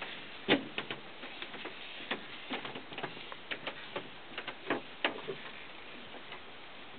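A dozen or so light, irregular clicks and taps over a faint steady hiss, stopping about five and a half seconds in.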